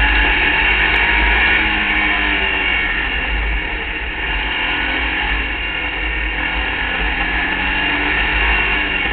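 Open-wheel hill-climb race buggy's engine running hard at speed, its pitch wavering slightly, with a steady low rumble of wind over the onboard microphone.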